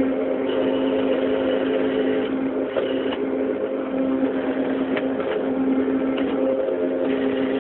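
CNC machine running with a steady hum held on one pitch over a noisy whir, with a few faint clicks.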